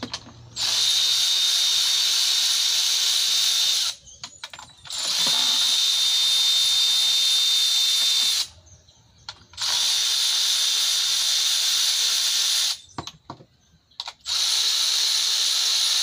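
Cordless electric ratchet whirring with a steady high whine as it spins bolts out. It runs in four bursts of about three seconds each, with short pauses and a few clicks between them as it moves from bolt to bolt.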